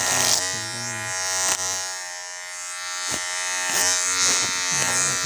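Electric hair clippers with a plastic guard comb running with a steady, rather loud buzz. The buzz wavers now and then as the blades pass through hair, and there are two brief clicks.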